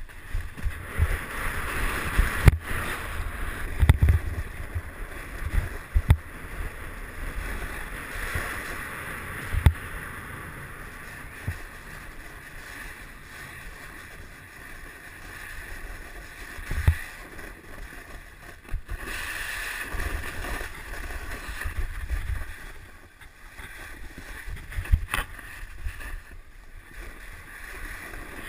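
Snowboard sliding and carving over crusty snow: a rushing hiss that swells and fades with each turn, with irregular low thumps and a few sharp knocks as the board hits bumps and jolts the camera.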